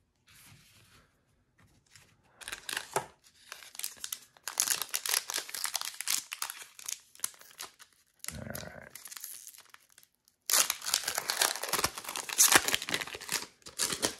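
Foil Pokémon booster pack wrapper being torn open and crinkled, in three spells of crackling, the last the loudest.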